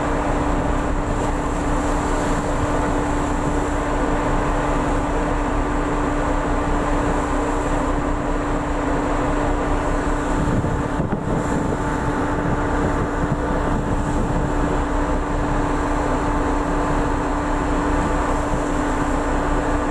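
Ship's engines running with a steady hum, mixed with the rush of water churning along the steel hull.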